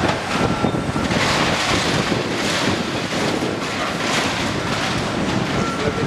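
A Cat skid steer's diesel engine working as it grips and carries a steel I-beam in its grapple bucket, heard within steady construction-site noise and wind on the microphone. A faint high whine comes and goes a few times.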